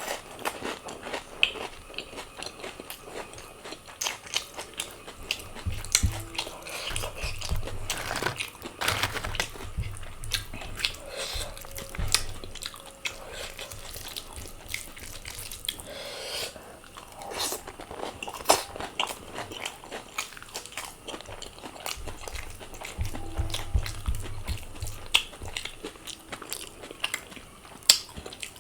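Close-miked eating: chewing and biting, with crunches and many small sharp mouth clicks throughout.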